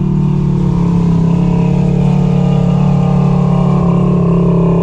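Off-road vehicle engine running at a steady speed, its pitch dipping slightly near the end.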